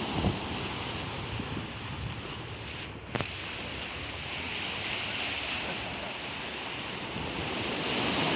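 Sea waves washing onto a sandy beach, with wind buffeting the microphone. A short click comes about three seconds in, and the surf swells louder near the end.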